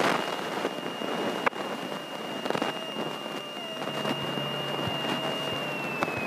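Cabin noise of a Grumman light single-engine airplane taxiing, a steady hiss with a thin high whine that slides a little lower near the end, and a couple of faint clicks.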